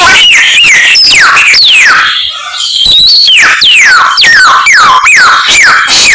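Samyong songbird singing loudly: a fast run of clear whistles that each sweep steeply down in pitch, about two a second, with a brief break about two seconds in. It is part of a mimicry-filled song.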